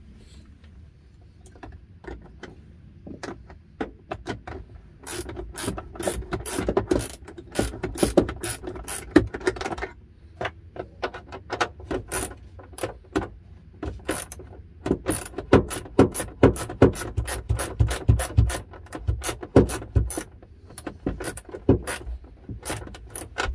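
Ratchet wrench with a 10 mm socket clicking in long runs of quick clicks, with a couple of short pauses, as the bolts holding a heater/HVAC box in place are tightened.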